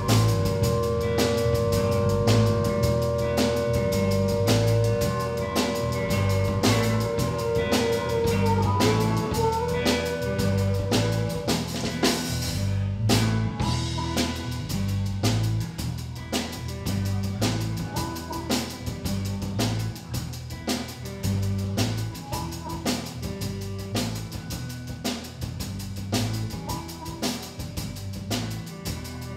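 Live blues band playing: an amplified blues harmonica holds long notes and bends up about nine seconds in, over a steady drum-kit beat, bass and electric guitar.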